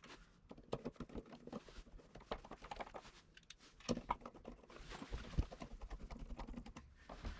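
Parts of a door latch assembly clicking and tapping as they are handled and fitted together by hand: irregular light clicks throughout, with a few louder knocks around the middle.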